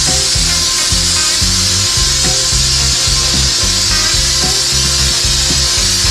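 Pressure washer spraying steadily, a constant hiss of water jet on metal, with background music carrying a repeating bass line underneath.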